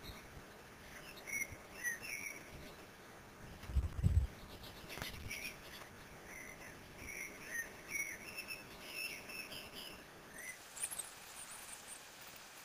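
Spanish imperial eagle nestling giving thin, high chirping calls, short notes repeated irregularly. A low thump about four seconds in.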